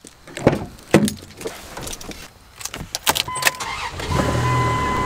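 Truck door latch clicking open, then a few clacks and a key rattle. A steady electronic warning chime starts a little after three seconds in. At about four seconds the engine starts and runs under the chime.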